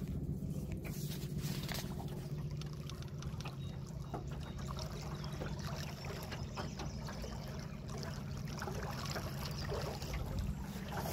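Water trickling and lapping against the hull of an aluminium boat on the lake, in many small irregular splashes, over a steady low rumble.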